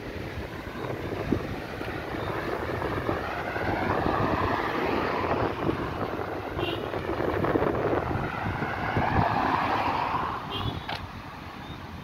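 Road traffic: cars passing close by on the road, their engine and tyre noise swelling and fading as they go by.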